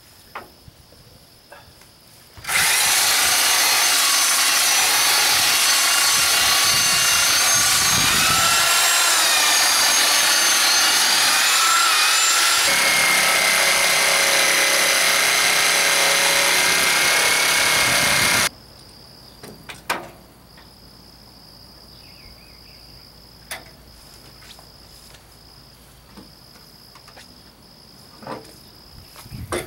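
Corded electric jigsaw cutting through plywood for about sixteen seconds, its motor whine shifting in pitch partway through the cut, then stopping; a few light knocks follow.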